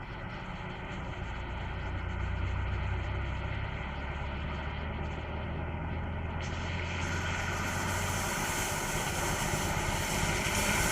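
Jeep engine running with a steady low hum, and a rushing noise that grows steadily louder over the last few seconds.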